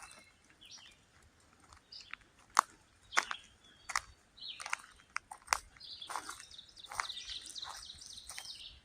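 Wild birds chirping, with a stretch of continuous warbling song from about six seconds in. A few sharp clicks are scattered through, the loudest at about two and a half, three and five and a half seconds.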